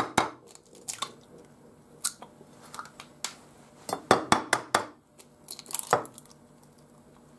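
Eggshells tapped and cracked open by hand, two eggs in turn, over a china plate: short bursts of sharp taps and clicks, with a quick run of several taps near the middle.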